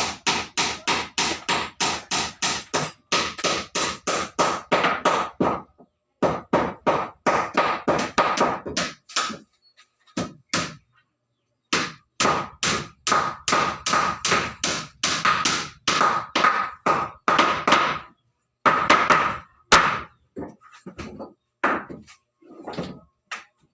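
Hammer striking wooden floorboards in quick runs of about four blows a second, broken by short pauses, many blows leaving a brief ring.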